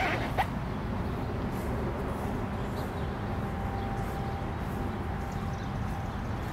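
Steady low rumble of outdoor background noise, with a sharp click about half a second in and a faint held tone in the middle.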